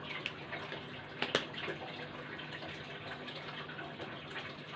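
Steady hiss like running water, with one sharp click about a second in and a few faint ticks.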